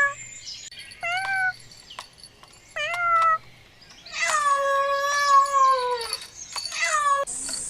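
A young animal mewing: five high, cat-like calls, four short and one long call of about two seconds that drops in pitch at its end.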